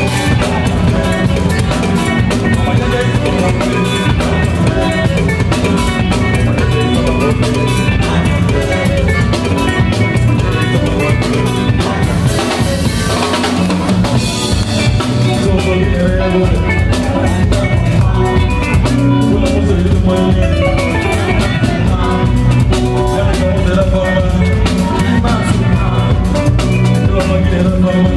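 Live West African band music driven by a drum kit, with guitars, saxophone and kora in the mix, playing at a steady level.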